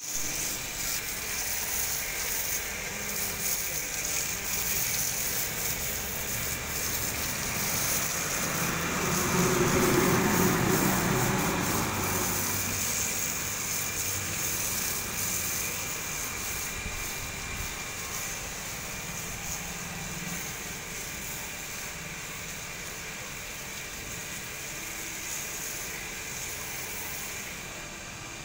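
Car-wash pressure pump running, with the steady hiss of a foam-bottle spray gun. A passing road vehicle swells louder for a few seconds about ten seconds in.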